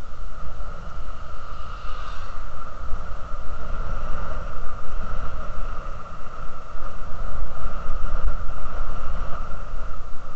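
Wind buffeting the microphone of a camera on a moving bicycle, a heavy uneven rumble, with a steady mid-pitched hum from the ride over a damp road underneath. A brief brighter sound comes about two seconds in.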